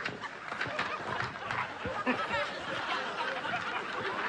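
Light snickering and chuckling laughter mixed with low murmured talk.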